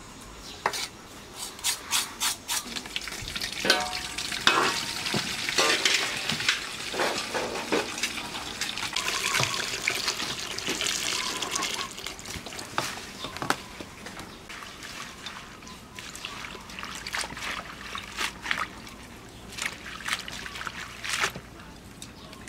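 Tap water running and splashing into a metal basin as leafy greens and luffa gourds are washed by hand, with a few sharp knocks near the start.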